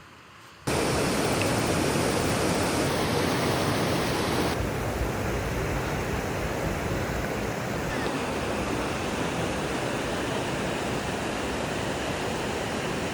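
Steady rush of falling water from a waterfall, cutting in abruptly under a second in; its tone changes slightly twice.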